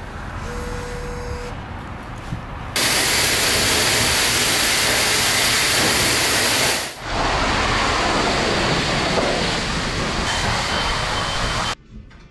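A loud, steady hiss starts abruptly about three seconds in, breaks off for a moment around seven seconds, resumes, and cuts off suddenly near the end. It follows a quieter noisy stretch with a steady tone lasting about a second.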